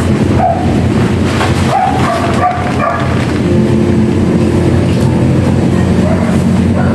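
Vehicle engine running steadily, with a few short high dog yelps in the first few seconds.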